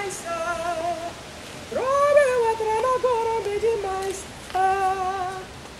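A woman singing unaccompanied in three slow phrases, with long held notes, gentle vibrato and sliding pitch.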